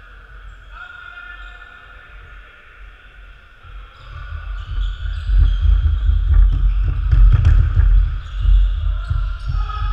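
Footsteps of several players running on a wooden sports-hall floor: a low thumping that builds about four seconds in and is loudest in the middle, with voices in the background.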